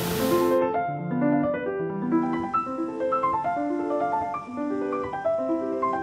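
Background piano music, a steady run of single notes. A burst of hiss lies over the first half-second, and a fainter hiss runs under the music from about a third of the way in.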